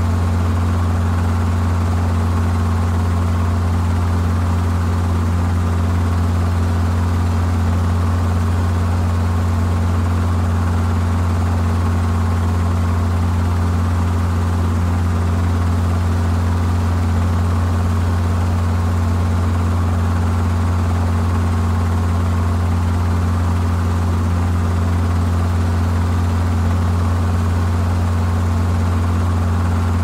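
Helicopter running steadily, a deep constant hum from rotor and engine with a faint steady higher tone above it. The level holds even throughout, with no sign of it approaching or passing.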